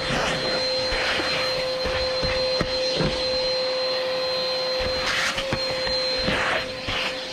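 Vacuum cleaner running with a steady motor whine, its suction hissing in uneven swells as the nozzle works over car carpet, with a few sharp clicks of debris being sucked up.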